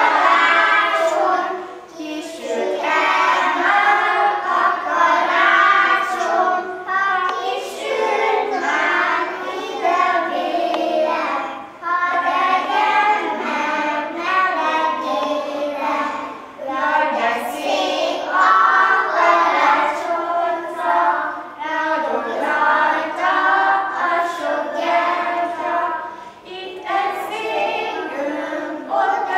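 A group of young kindergarten children singing a Romanian Christmas carol (colind) together, in sung phrases with short pauses for breath between lines.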